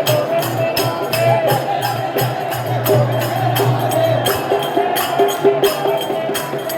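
Festival music with quick, evenly spaced percussion strokes keeping a steady beat over a low drone and a wavering melody line.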